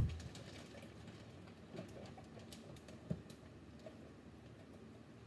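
A plastic zipper bag rustling as its contents are shaken out into a blender jar, with a sharp thump right at the start, a smaller knock about three seconds in, and faint scattered clicks between.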